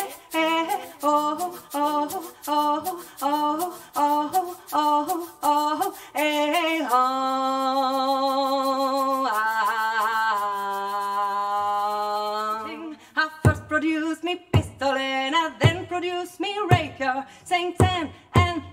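A woman singing unaccompanied in quick, wordless syllables, then two long held notes with vibrato from about seven seconds in. From about thirteen seconds in, deep bodhrán strokes come in under her voice.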